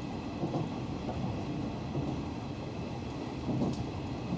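Steady running rumble inside a moving Hanshin electric train car, with wheels rolling on the rails.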